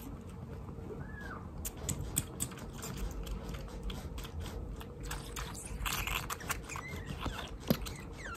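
A young kitten suckling milk from a syringe-style feeding bottle: a run of small, irregular wet clicks and smacks from its sucking.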